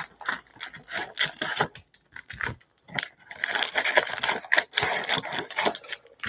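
A cardboard trading-card box being ripped open by hand and its foil card packs pulled out and stacked: a run of sharp clicks, crinkles and scrapes, with a longer stretch of continuous rustling in the second half.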